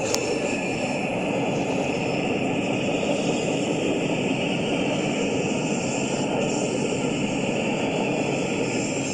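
Long freight train of empty intermodal well cars rolling past at speed, a steady roar of steel wheels on the rails. A single sharp click comes right at the start.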